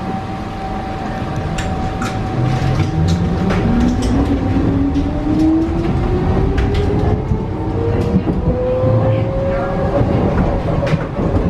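Pesa Swing low-floor tram accelerating, heard from inside the passenger saloon: the traction drive's whine climbs steadily in pitch over about eight seconds over wheel-on-rail rumble, with scattered clicks and knocks from the track and car body.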